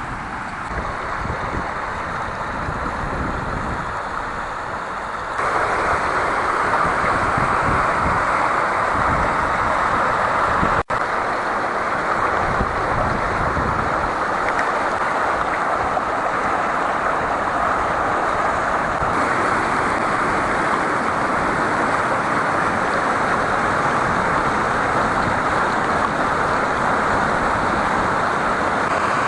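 Water rushing steadily over the spillway of the Cheremsha pond, a continuous hissing roar. It becomes louder about five seconds in and drops out for an instant near eleven seconds.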